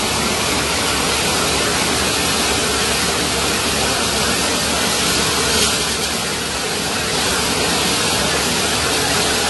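Floodwater rushing loudly and steadily, with no break.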